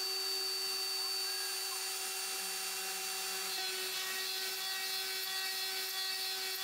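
Router spindle of a Genmitsu 3020-Pro Ultra desktop CNC milling aluminum with a small end mill: a steady high whine over the hiss of the cut. The tone shifts slightly a little past halfway as the cut goes on.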